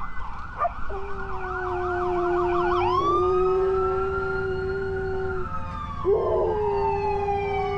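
Ambulance siren in a fast yelp for about three seconds, then switching to a slow rising-and-falling wail, while a husky howls along in long, steady notes beneath it, pausing briefly about six seconds in before starting a second howl.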